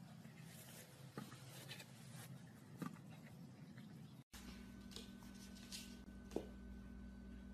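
Faint background hiss with a few soft scattered clicks and scratches. About four seconds in it drops out for an instant and changes to a steadier low hum with a faint thin tone.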